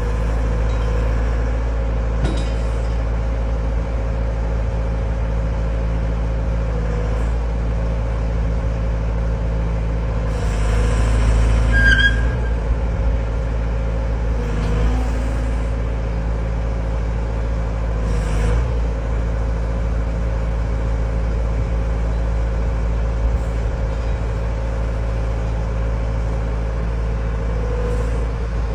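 XCMG XE60G mini excavator's diesel engine running steadily under load while the machine climbs onto a dump truck bed. Short bursts of hiss come through, the strongest about ten to twelve seconds in, with a brief high squeal near the middle.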